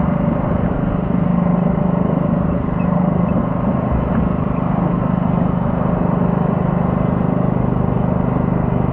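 A stock garden tractor's small engine runs steadily under load as it drags a weight sled down the pull track.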